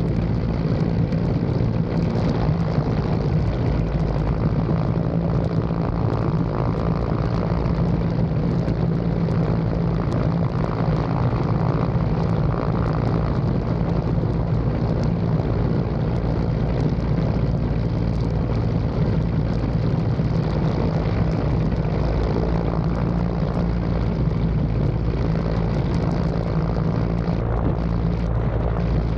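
Helicopter in flight: a steady, loud engine and rotor drone with a deep, even hum.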